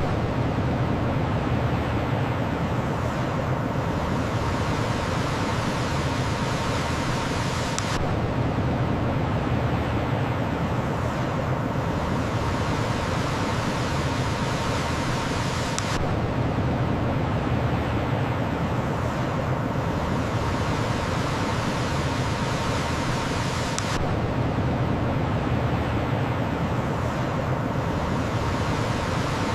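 Rushing torrent of a mountain stream, a steady full roar of water. The same short stretch repeats about every eight seconds, with a faint click at each join.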